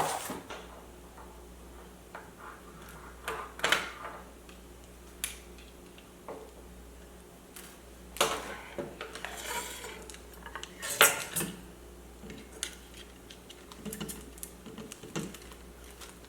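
Hard objects being handled: irregular clinks and knocks, a dozen or so, scattered through the stretch, over a faint steady low hum.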